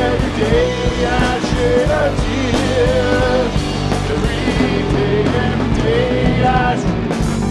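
Rock band playing on drum kit and electric guitars, with a wavering melody line riding over a steady beat.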